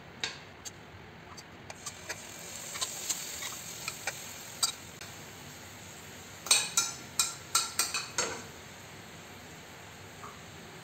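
Marinated chicken tikka pieces being spooned into a hot frying pan with a little oil, giving a light sizzle. Spoon clicks and taps against the bowl and pan run throughout, with a quick cluster of louder taps from about six and a half to eight seconds in.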